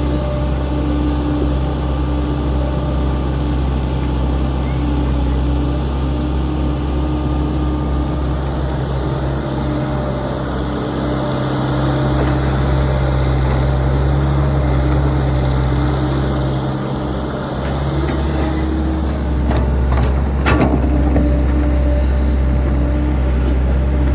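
Heavy engine of a well-drilling rig running steadily under load with a low, even hum. A few sharp metallic knocks come near the end.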